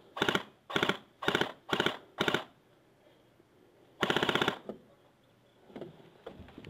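Airsoft rifle firing a string of short rapid bursts about half a second apart, then a longer burst about four seconds in.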